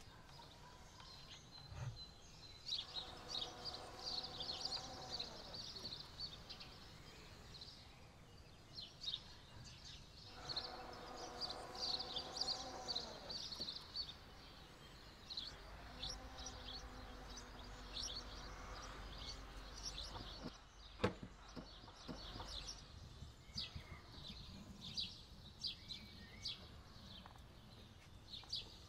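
Small birds chirping and twittering throughout. Three times a steady pitched hum lasts a few seconds and drops in pitch as it stops, and a single sharp click sounds about two thirds of the way through.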